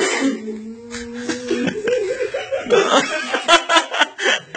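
People laughing: a drawn-out held note at first, then a quick run of chuckles and giggles about three seconds in.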